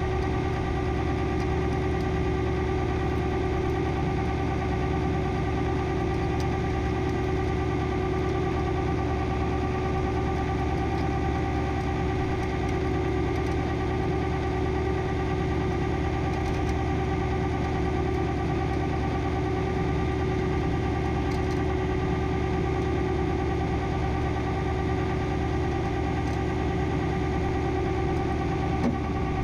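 Tow truck's engine running at a steady speed to power the winch, with a steady whine over it, while the cable slowly draws the car out of the sand.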